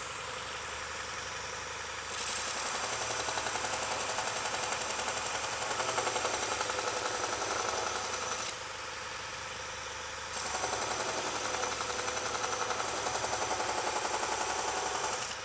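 Robert Sorby ProEdge belt grinder running, with a carving axe's steel bevel ground against the abrasive belt in two passes: a louder grinding hiss starts about two seconds in, drops back to the motor alone for a couple of seconds, then comes back until near the end. It is a quick grind to remove a marker line and show the bevel is ground right to the edge.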